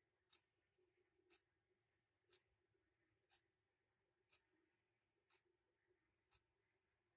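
Faint, short, scratchy ticks at an even pace of about one a second, over a faint steady hum.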